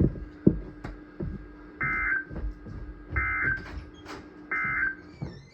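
Emergency Alert System end-of-message code: three identical short bursts of buzzy digital data tones, about a second and a half apart, marking the end of the severe thunderstorm warning broadcast. A faint steady hum runs underneath.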